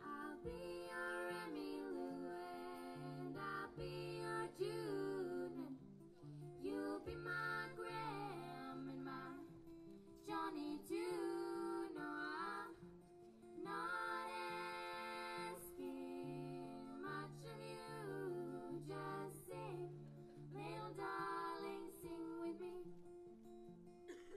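A singer with acoustic guitar accompaniment performing a song, the voice carrying the melody in phrases over steady plucked guitar notes.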